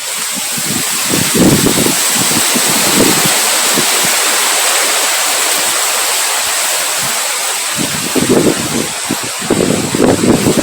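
Wind blowing as a steady, loud rushing hiss, with low gusts buffeting the microphone about a second in and again near the end.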